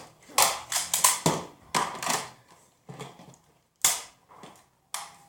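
Nerf foam-dart blasters firing: about seven sharp pops, spread irregularly over a few seconds.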